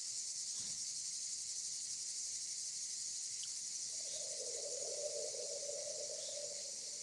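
Steady high-pitched chorus of insects. About four seconds in, a softer, lower sound joins it and fades near the end.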